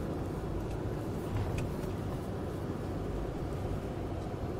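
4x4 truck engine running steadily, a low even noise with no rise or fall in pitch.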